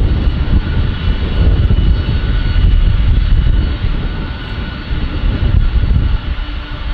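Boeing 747 freighter's jet engines running as it taxis at close range: a loud, continuous low rumble with a steady high whine over it.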